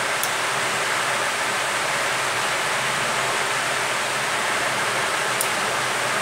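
Steady hiss with no tone in it, with two faint high ticks, one right at the start and one near the end.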